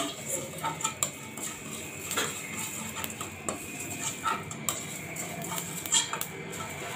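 A plastic spatula stirring cumin seeds and panch phoron in hot oil in a non-stick kadai, scraping and tapping against the pan in irregular clicks about a second apart: whole spices being fried for a tempering.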